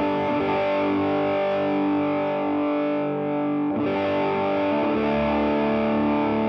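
Electric guitar through distortion playing sustained, ringing chords, moving to a new chord about four seconds in.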